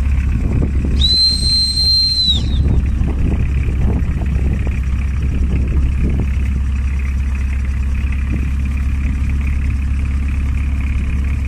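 Boat engine running steadily. About a second in, one high whistle is held for about a second and a half over it.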